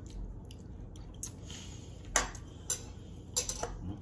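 Spoons and forks clinking and scraping against plates during a meal: a handful of short, light clinks, the loudest a little after two seconds in.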